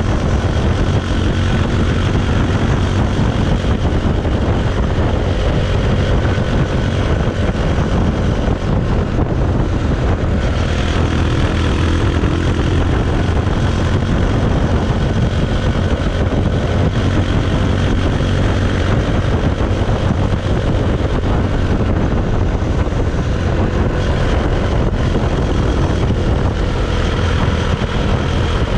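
Bajaj Pulsar 220's single-cylinder engine and exhaust running steadily at an even engine speed, loud and without big revs.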